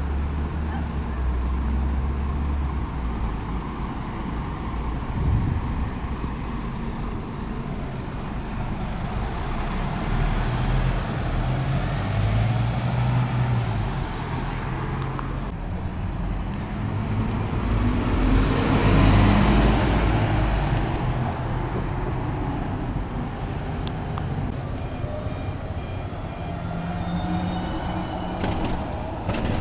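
City diesel buses running in street traffic: engines rumbling at a stop and pulling away. A little past halfway a bus passes close, the loudest moment, with a hiss lasting several seconds.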